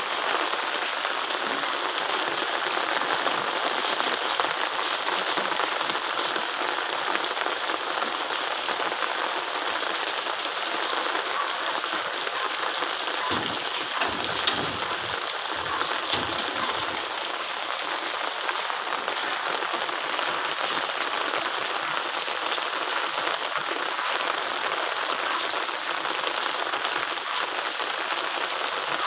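Steady rain falling, a dense even hiss of drops. A few brief low bumps come about halfway through.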